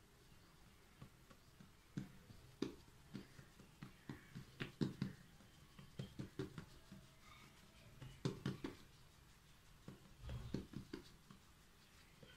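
Hands patting and pressing pizza dough flat on a floured countertop: quiet, irregular soft thuds and taps in loose clusters.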